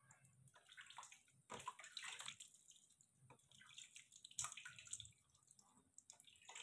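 Faint, irregular splashes and drips of water as hands wash a baby monkey in a basin, with a few louder splashes around one and a half to two seconds in and again around four and a half seconds in.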